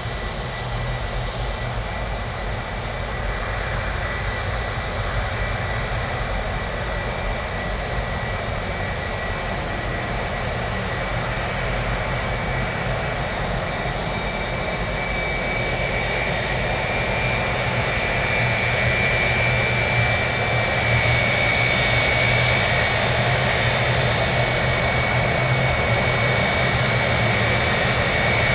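Jet engines of a Boeing 757-200 taxiing in: a steady rumble with a high whine, growing slowly louder as the aircraft approaches, with a second, higher whine coming up about halfway through.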